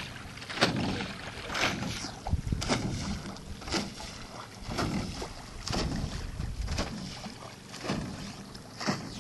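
Water splashing and sloshing in surges about once a second on open water, with wind buffeting the microphone.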